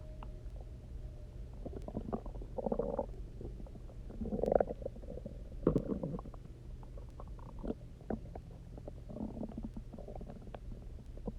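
A hungry, empty human stomach gurgling and rumbling after a day without food, with water drunk on the empty stomach moving inside it. A string of irregular, resonant gurgles comes and goes, the loudest two around the middle.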